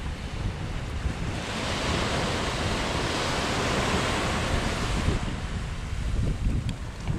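Surf washing up the shore of a black sand beach, one wave's hiss swelling about a second and a half in and fading again near five seconds. Wind rumbles on the microphone throughout.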